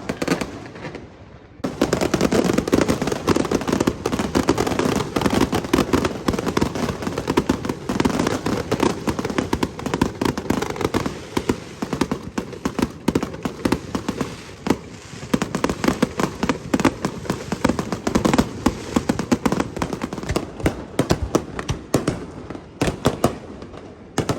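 Aerial fireworks display: a dense barrage of rapid bursts and crackles, beginning about two seconds in and going on almost without a break, thinning out near the end.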